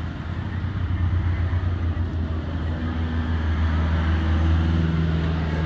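A motor vehicle engine running close by, a steady low hum with a few held tones above it.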